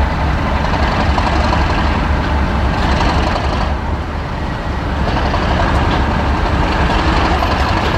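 Diesel locomotive engines running with a steady low drone as a line of locomotives moves slowly, one of them a Class 37.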